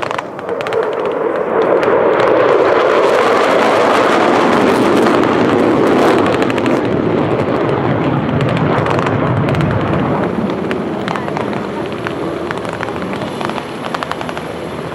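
Jet fighters flying past: a loud engine roar with a crackle in it, swelling in the first second and slowly easing over the second half.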